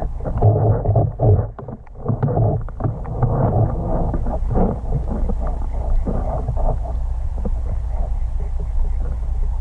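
Muffled underwater noise picked up by a submerged camera: a steady low rumble of moving water with irregular dull thumps and sloshing as the spearfisher moves.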